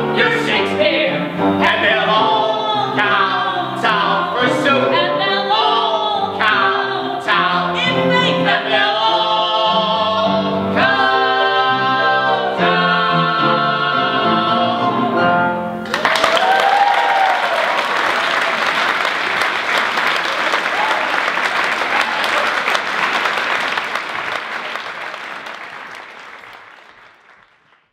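A man and a woman sing the close of a show tune with a small live band, ending on long held notes. About sixteen seconds in, the song stops and an audience applauds with a cheer, and the applause fades out near the end.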